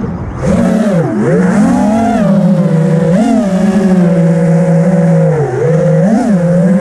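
FPV freestyle quadcopter's brushless motors and propellers whining at close range. The pitch drops sharply as the throttle is chopped at the start, then settles into a steady whine broken by short dips and rising blips as the throttle changes.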